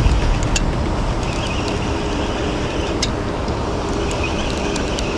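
Steady rushing wind noise on the microphone outdoors, with a few faint clicks.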